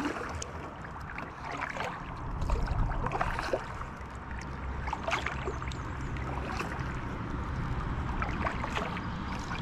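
Flowing river water with a low, uneven wind rumble on the microphone, and scattered light clicks.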